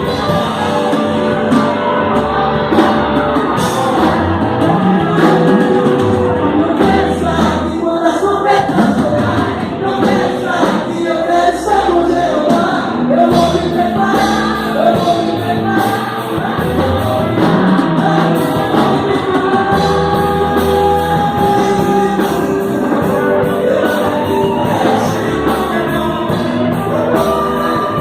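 A band playing a Brazilian gospel song, with voices singing held notes over it.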